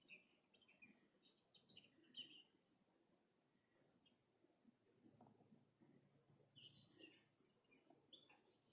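Faint chirping of several wild birds: short, high calls scattered irregularly, a few each second.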